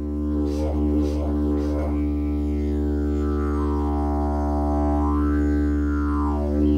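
Didgeridoo playing a steady low drone. A few quick rhythmic pulses of the tongue and breath come in the first two seconds, then the tone shifts in slow, rising and falling sweeps as the player reshapes the mouth.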